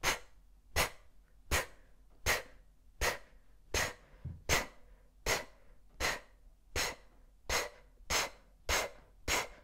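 A woman's forceful exhalations through pursed lips: short, sharp puffs in an even rhythm, about one every three-quarters of a second. This is fire breathing, each exhale driven by pulling in the abdominal muscles, with the inhale left passive.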